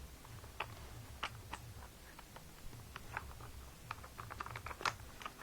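Small scattered clicks and taps of metal parts being handled as a bolt is fitted onto a BMX railed seat clamp, the clicks coming quicker about four seconds in, over a low steady hum.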